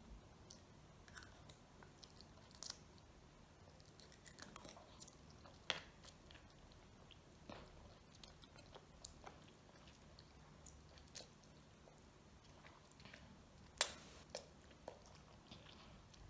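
A child eating ramen noodles and sausage slices with chopsticks: faint chewing and slurping of noodle strands, with small scattered clicks and one sharper click near the end.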